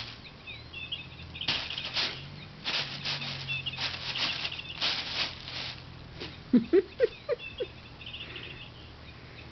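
A crinkle-bag pet toy rustles and crackles as it is bitten and tugged, while the toy's built-in electronic bird chirper plays short warbling trills again and again. A few short, loud, low squeaks come about two-thirds of the way through.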